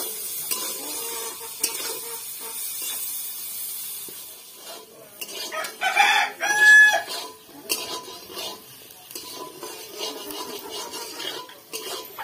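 A rooster crows once, about six seconds in, in a call of a second or so that is the loudest sound. Under it, a metal spatula scrapes and stirs potato and soybean chunks in a steel kadai.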